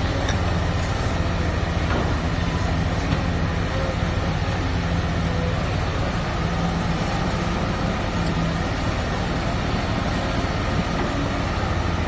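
Heavy diesel machinery running steadily: a constant low engine hum under a continuous rushing noise.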